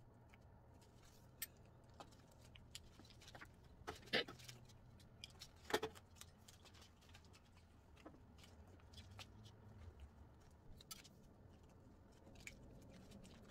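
Faint handling noises: small clicks and rustles of a measuring tape and pins being worked on a wig cap, with two louder sharp clicks about four and six seconds in.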